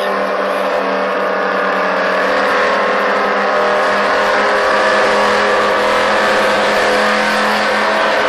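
Ilmor racing engine of a race boat running flat out across the lake, a loud, steady engine note that swells slightly about halfway through.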